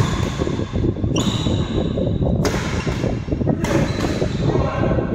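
Badminton rally: rackets striking the shuttlecock four times, about a second and a quarter apart, each sharp hit ringing on briefly in the hall. A steady low noise runs underneath.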